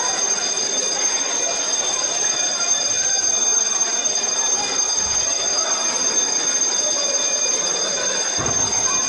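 Electric alarm bell ringing continuously as a steady high ringing, over the murmur of a crowd.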